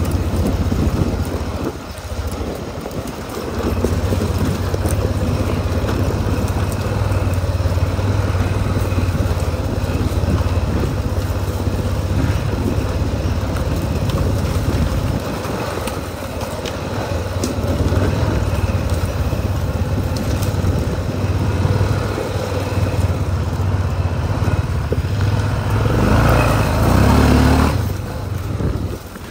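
Honda ATV engine running while the quad is ridden, a steady low drone that rises and eases with the throttle, with wind and ride noise over it. It is loudest a couple of seconds before the end, then drops away quickly.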